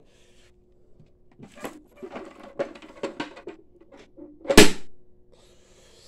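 Plastic dust cup of a Shark vacuum being handled and emptied: a run of small clicks and knocks, then one loud knock about four and a half seconds in.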